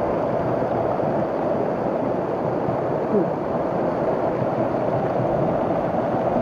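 Waterfall pouring steadily, a constant rush of falling water.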